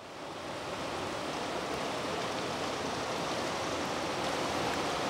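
Steady rushing of water over river rapids, fading in at the start.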